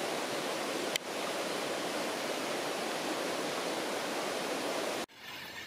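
Steady rushing of a flowing jungle stream, cutting off suddenly near the end.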